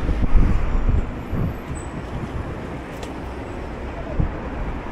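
City street traffic noise: a steady low rumble of passing vehicles, louder in the first second.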